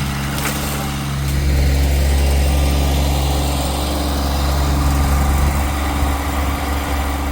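A vehicle engine running steadily at low revs, getting louder about a second in.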